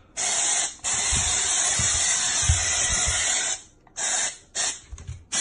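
Loud hissing spray: a short burst, then a long steady one lasting nearly three seconds, then several short bursts near the end.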